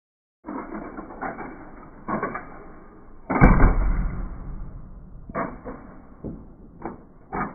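1/36-scale toy Mercedes ML-Class model tumbling in a rollover test: a string of clattering knocks, the loudest a heavy thump about three and a half seconds in, with more knocks spread through the rest.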